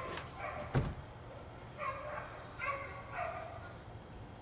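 A wooden shed door pulled open, with a knock about a second in. A dog gives a few short whining yelps, three of them close together near the middle.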